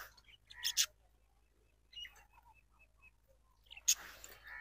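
Faint bird chirping: a quick run of short high peeps about two seconds in, with a couple of brief louder noises around it.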